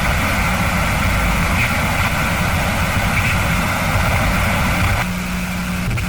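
Radio static: a steady, loud hiss over a low rumble, which changes about five seconds in to thinner hiss with a steady low hum.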